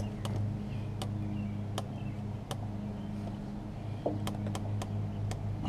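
Sparse, irregular sharp clicks of a hand tool working the bolt of a motorcycle frame slider as it is snugged tight, over a steady low hum.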